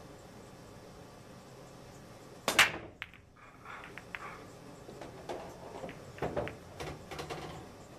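Pool break shot in 8-ball: a single loud crack about two and a half seconds in as the cue ball smashes into the racked balls, followed by a few seconds of scattered clicks and knocks as the balls collide with each other and rebound off the cushions.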